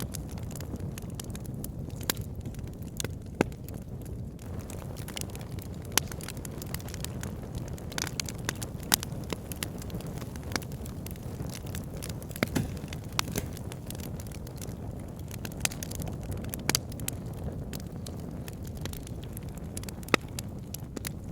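Wood logs burning in a log burner: a steady low rumble of flames with frequent irregular crackles and pops, a few sharper snaps standing out.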